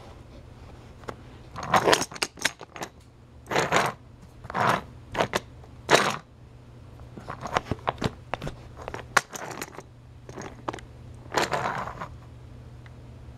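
A plastic toy train and playset being handled and moved by hand: a dozen or so short, irregular bursts of clattering and scraping, over a low steady hum.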